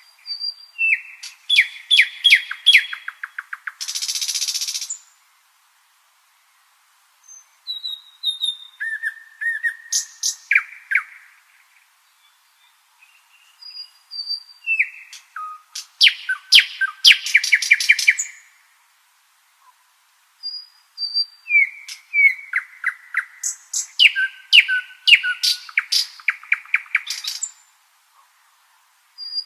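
Nightingale singing in four phrases separated by short pauses. Each phrase is built of rapid runs of repeated notes and pure whistles. The first phrase ends with a harsh, buzzing rattle about four seconds in.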